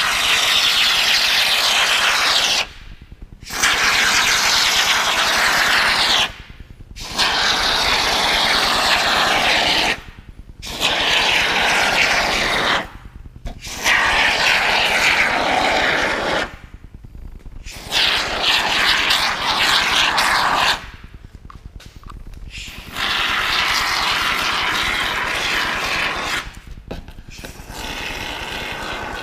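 Aerosol can of Soudal expanding polyurethane foam spraying: about eight hissing bursts of two to four seconds each, with short breaks between trigger pulls as the foam is laid into a mould.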